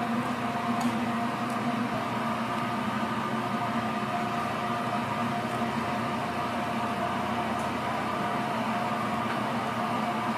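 A steady mechanical hum with several held tones over an even hiss, and a few faint clicks.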